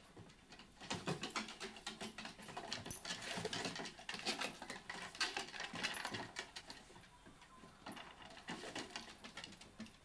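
Rapid, irregular clicking and tapping of claws on a wooden deck as a Dalmatian and a sulphur-crested cockatoo scuffle. The clicks come thickest from about a second in to about seven seconds, with a shorter run near the end.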